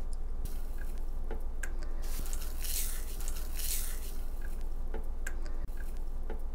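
Crisp, oven-dried peppermint leaves rustling and crackling as they are crumbled by hand into a metal tea tin, in a few bursts with light clicks.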